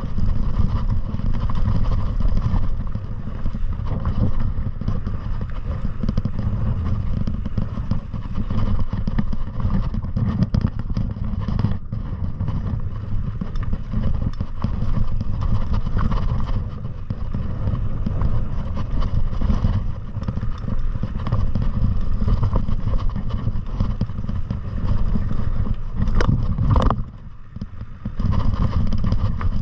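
Steady low rumble of wind and rattling from a downhill ride over rough ground, with a short quieter dip near the end.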